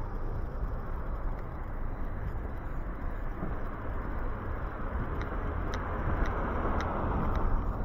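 Road traffic: a steady low rumble with a vehicle passing, its noise swelling over the last few seconds and easing off at the very end. A few faint ticks are scattered through it.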